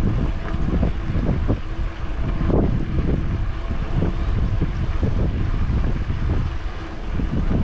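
Wind buffeting the microphone of a camera on a moving bicycle, a continuous low rumbling rush with uneven gusts, mixed with the rumble of the tyres on the pavement.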